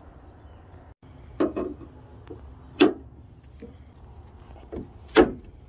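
A new hood lift support's socket end being pushed and snapped onto its ball stud: a handful of short, sharp clicks and knocks, the loudest near the middle and near the end.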